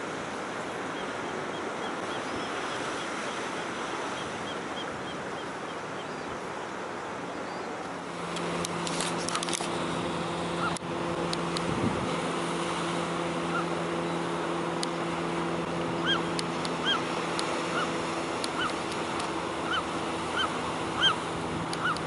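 Ocean surf washing against rocky cliffs, with wind on the microphone. About eight seconds in, a steady low hum joins, and in the second half a run of short, repeated bird calls sounds over it.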